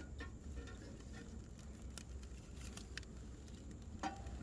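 Newly lit campfire crackling faintly, with a few scattered sharp pops.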